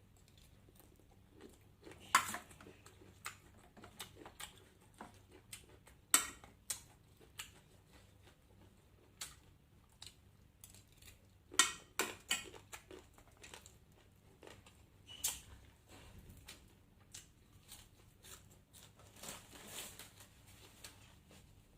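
A person eating close to the microphone: chewing and crunching, with scattered sharp clicks and taps. The loudest clicks come about two, six and twelve seconds in.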